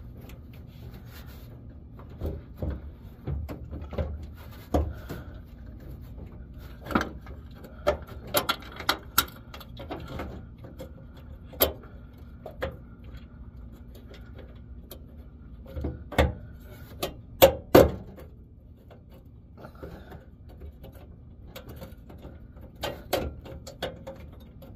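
Irregular clicks, taps and knocks of metal parts and tools being handled as bolts are started by hand, with two louder knocks close together about seventeen seconds in.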